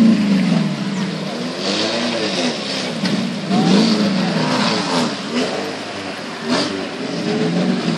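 Suzuki Jimny 4x4's engine revving up and down over and over, about once a second, as it works its way through a muddy, rocky river.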